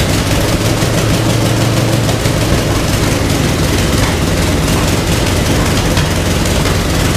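Wright R-1820 Cyclone 9 nine-cylinder air-cooled radial aircraft engine running steadily on a test stand.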